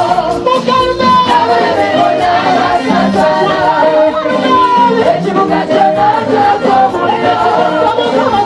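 Church praise singing: many voices singing together over a steady beat.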